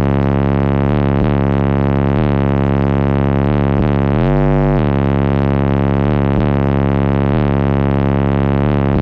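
A loud, steady, deep bass tone played through Sundown Audio subwoofers on Crescendo amplifiers. It rises briefly in pitch about four seconds in, then drops back.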